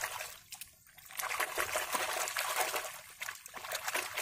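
Muddy water splashing and sloshing as a plastic toy excavator is swished and scrubbed by hand in a shallow puddle, with a brief lull just under a second in.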